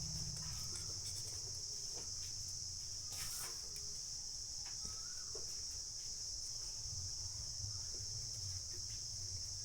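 Steady high-pitched insect chirring, with a low hum underneath and a few faint clicks.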